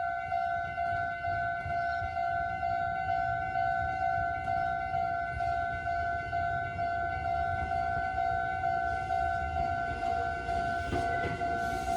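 Japanese railway level crossing warning bell ringing in an even, repeating electronic ding, sounding the alarm that a train is coming. Near the end the noise of the approaching train begins to come in under it.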